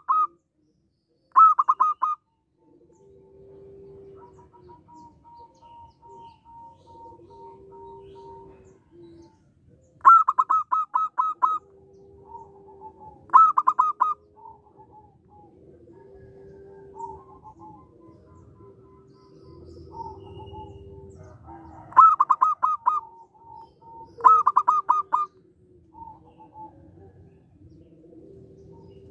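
Zebra dove (perkutut) calling: five loud bursts of rapid staccato coos, with softer, longer low coos between them.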